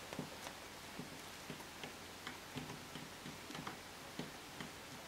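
Faint, irregular small clicks and taps, roughly two a second, from a resin statue arm being pressed and test-fitted into its socket on the plastic-wrapped figure.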